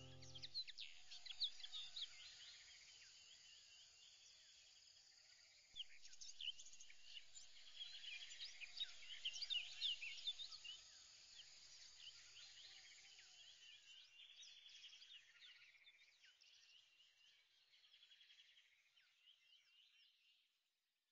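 Faint chorus of many small birds chirping, dense calls through the middle that thin out and fade away near the end.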